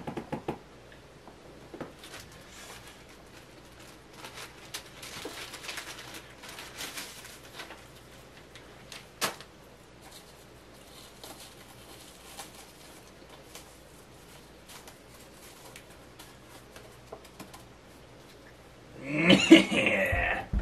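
Faint crinkling and clicking of a plastic water bottle being handled, with one sharp click about nine seconds in. Near the end a loud burst of voice breaks in.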